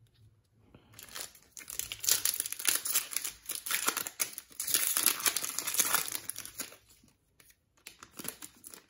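Foil wrapper of an Optic basketball trading-card pack being torn open and crinkled by hand: dense crackling starts about a second in and lasts several seconds, then thins to a few light crinkles near the end.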